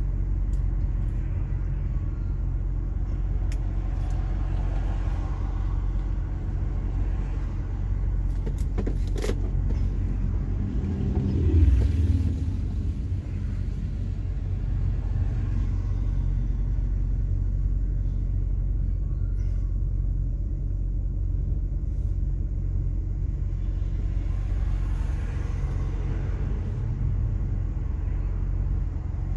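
Steady low engine and road rumble of a car driving slowly in traffic, heard from inside the cabin, with a brief louder engine swell a little before the middle.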